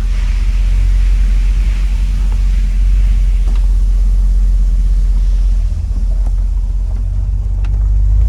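A 1966 Chevrolet Impala SS's 327 V8 engine running under way with a steady low exhaust rumble. It eases off briefly about six seconds in and builds again near the end.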